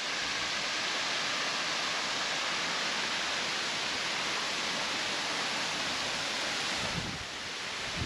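Waterfall: a steady rush of falling water. Near the end the rush drops slightly and wind buffets the microphone with low rumbles.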